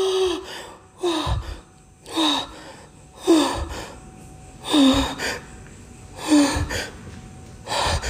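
A man's heavy, voiced gasping breaths, seven of them in a steady rhythm about every second and a half, each one dropping in pitch.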